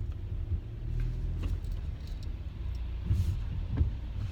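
Low, steady rumble of a car heard inside its cabin.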